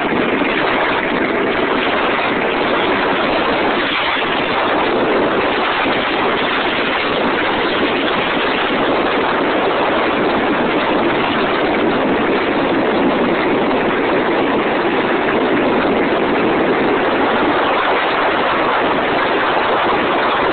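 Go-kart's Predator engine running steadily as the kart drives at speed, mixed with a loud, constant rush of wind on the microphone.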